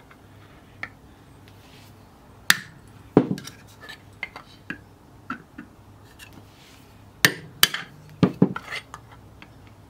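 Hammer taps on a metal pin punch, knocking 3D-printed support material out of the screw holes in a plastic bracket. The taps are sharp and spread out: two a little way in, then a quick cluster of several near the end.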